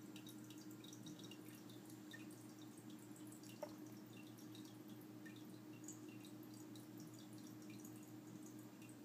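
Faint dripping and trickling of water from an internal aquarium filter, over a steady low hum. One brief louder tick about three and a half seconds in.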